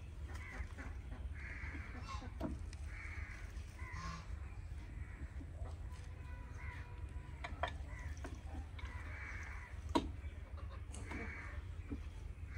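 Birds calling with short, harsh calls that repeat about once a second, with a few sharp clicks, the loudest about ten seconds in, over a steady low hum.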